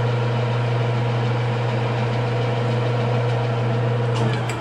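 Weiler DA260 engine lathe running in high range: a steady hum from the spindle drive and gearbox. A few sharp clicks come near the end as the controls are worked, and the machine begins to wind down.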